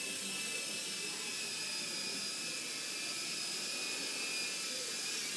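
Small radio-controlled toy helicopter hovering, its electric motor and rotors giving a steady high whine.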